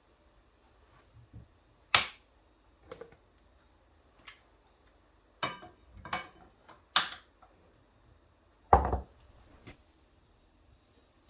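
Scattered knocks and clicks of objects being handled and set down, about seven in all, spaced irregularly, with the loudest about two seconds in, near the middle and near the end.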